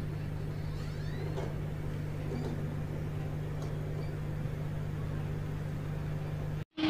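Steady low electrical hum with faint room noise, cutting off to a moment of silence near the end.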